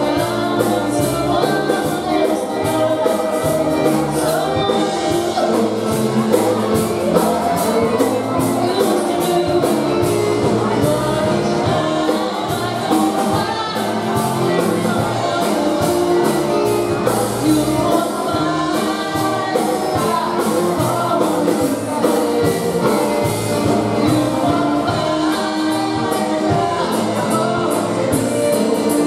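Live polka band playing a slow couples' dance tune: accordion, saxophone and drum kit with a woman singing, over a steady drum beat.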